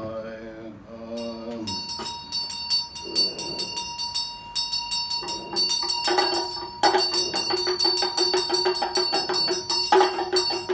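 Tibetan ritual damaru, a small two-sided hand drum, rattling rapidly together with a ringing vajra bell (dril bu), coming in as a chanted line ends about two seconds in; a low held tone joins about halfway.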